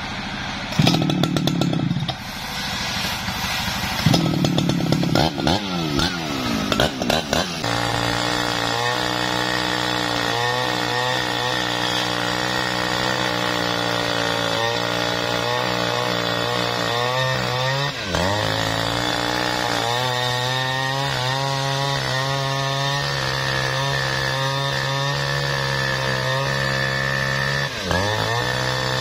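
Jonsered two-stroke chainsaw revving in uneven surges for the first several seconds, then running at steady high speed as it rip-cuts lengthwise along a jackfruit log. Its pitch dips briefly twice as the chain bogs under load.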